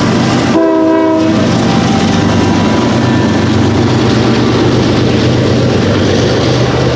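Short blast of a multi-tone locomotive air horn, then a train passing close by with loud, steady rumble and rail noise.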